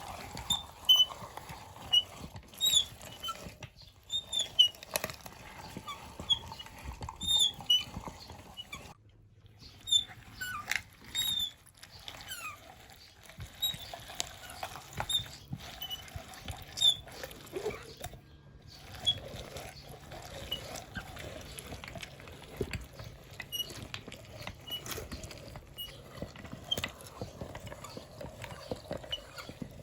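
Green pumpkin being crushed in a meat grinder: irregular crackling and crunching with short squeaks.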